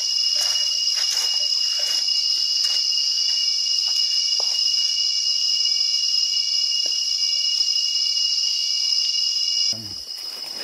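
Forest insects droning, a loud steady high-pitched buzz, with footsteps crunching on dry leaf litter over the first few seconds. The drone cuts off abruptly near the end.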